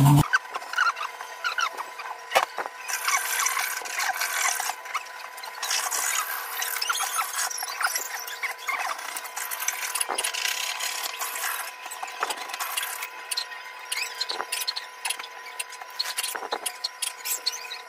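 Hands scraping and rubbing: a stick working two-part steel epoxy and a marble strip being handled and pressed against tile, with a few short knocks.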